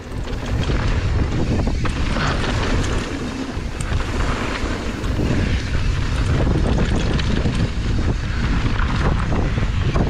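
Wind buffeting the camera microphone as a mountain bike runs fast downhill on a dirt trail, with tyre rumble and small knocks and rattles from the bike over bumps.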